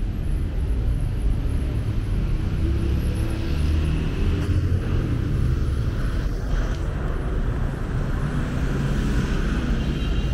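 Street traffic noise: a steady low rumble of passing cars.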